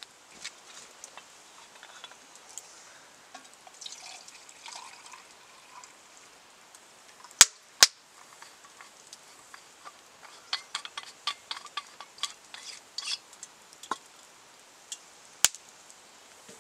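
Wood fire crackling in a metal fire bowl, with several loud sharp pops (two close together about halfway through, another near the end) and a run of smaller crackles between them. Water is poured from a metal bottle into a pot for a brew.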